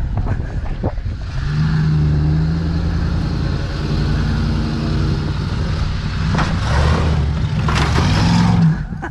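Vehicle engine running steadily under load while pushing another car. Near the end there are two bursts of rough scraping or crunching noise, then the engine sound cuts off abruptly.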